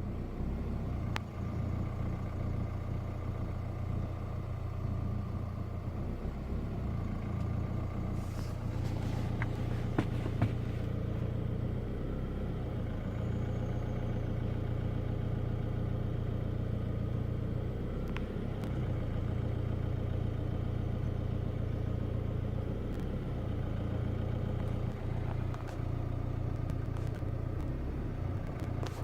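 A 2016 Chevrolet Colorado's 2.8-litre Duramax four-cylinder turbo-diesel idling roughly, its idle surging up and down every few seconds, with a few faint clicks.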